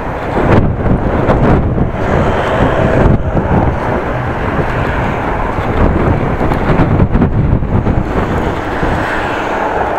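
Wind buffeting the microphone of a bicycle being ridden, mixed with road and tyre noise, rising and falling in gusts.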